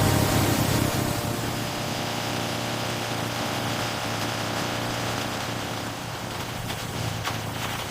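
Steady low machine hum with a few light clicks near the end.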